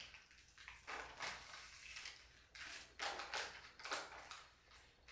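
Faint crunching of someone chewing a French Pie puff-pastry cookie, about a dozen soft crunches at an uneven pace.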